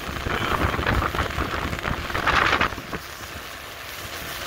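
Wind buffeting the microphone and water rushing past the hull of a small speedboat under way, in gusty surges, dropping to a quieter steady hiss about three seconds in.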